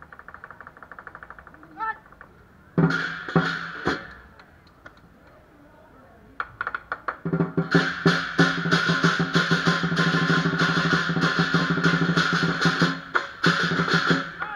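Lion dance drum with cymbals and gong. Soft quick taps at first, then a few loud crashing strokes about three seconds in and a short lull. After that, a drum roll builds into a full, steady beat with clashing cymbals from about seven seconds on.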